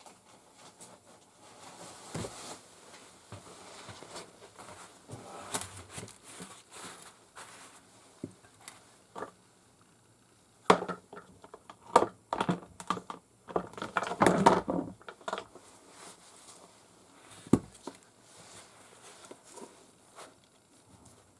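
Small parts and tools being handled on a workbench: scattered clicks and knocks, with a busier, louder run of clatter about halfway through.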